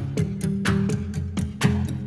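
Upbeat background music with a steady beat and plucked guitar-like notes.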